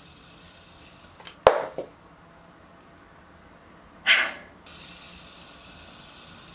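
Fidget spinner being tossed and caught between the hands: a sharp clack about a second and a half in with a softer one just after, then a short breath around four seconds in, over a faint steady hiss.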